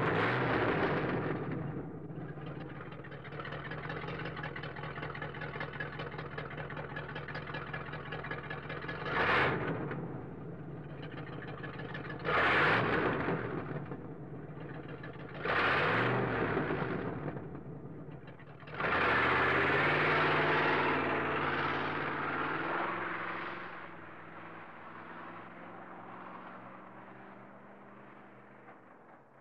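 A car engine, loud just after starting, settling into a steady idle. It is revved in three short blips and then one longer rev held for a few seconds, before it fades away while idling.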